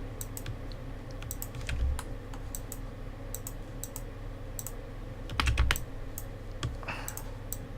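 Scattered clicks of computer keys, with a short run of quick taps about five and a half seconds in, over a steady low hum.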